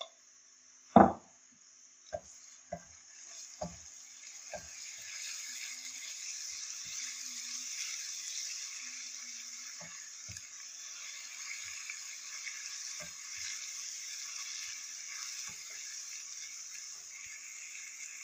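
Garlic and browned onions sizzling in a non-stick frying pan as they are stirred with a spatula. A sharp knock on the pan comes about a second in, with a few lighter clicks after it, and the sizzle holds steady from about five seconds in.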